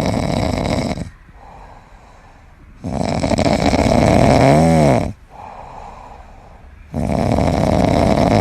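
An animal snoring loudly: three long, rasping snores of about two seconds each, with quieter breaths between them. The middle snore ends in a wavering whistle.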